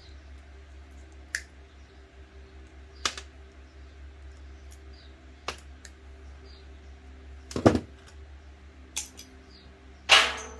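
Scattered sharp clicks and clinks of small electronic scrap parts being handled and set down, about six in all, the loudest two near the end, over a steady low hum.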